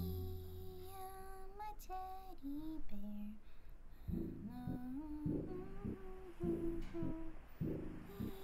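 A young girl humming a slow, lullaby-like tune, one held note after another. About halfway through, a soft, regular tapping joins in, about twice a second.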